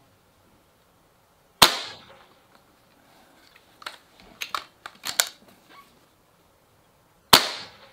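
Two loud shots from a .25 calibre Kral Puncher Breaker PCP air rifle, each a sharp crack with a short ringing tail, about six seconds apart. Between them come a few light clicks as the rifle's action is cycled for the next pellet.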